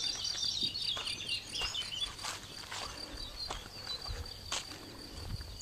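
Insects chirring steadily in summer grassland, with a small bird twittering in the first two seconds and occasional footsteps.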